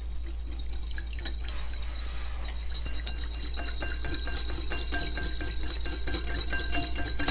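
Metal wire whisk beating an oil-and-lime dressing in a glass bowl to emulsify it. Rapid clinking of the wires against the glass and swishing of the liquid, getting faster and louder about three seconds in, with the bowl ringing faintly.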